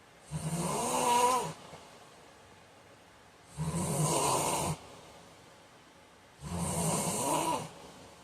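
A man snoring in sleep: three loud snores about three seconds apart, each lasting about a second.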